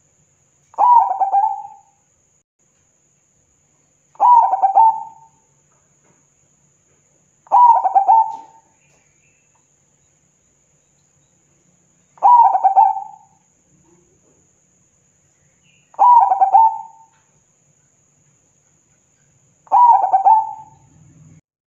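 Zebra dove (perkutut) singing its staccato cooing song: six phrases spaced about four seconds apart, each about a second long.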